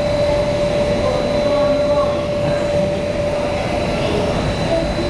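Indoor skydiving vertical wind tunnel running: a steady rush of air from the fans, with a constant hum-like tone held over it.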